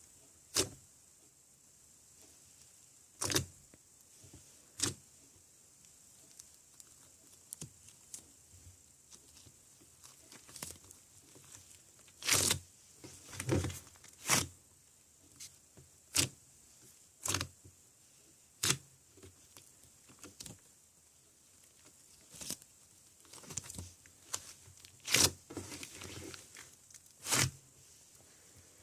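Red modelling clay being handled: irregular sticky pulls, squishes and taps, one every second or two, some in quick clusters.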